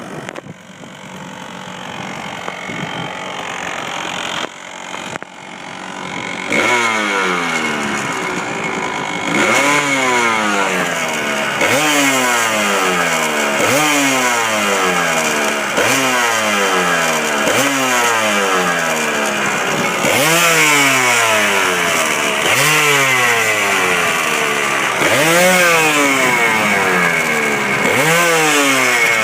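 Kawasaki KDX200 two-stroke single-cylinder engine running, quieter for the first six seconds, then rising sharply in pitch and falling back over and over, about once every second and a bit. This is the strange noise the owner is showing.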